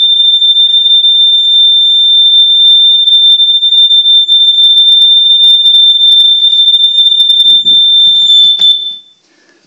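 Smoke alarm sounding a loud, steady, high-pitched tone during an alarm test. It cuts off suddenly about nine seconds in, just after a couple of knocks.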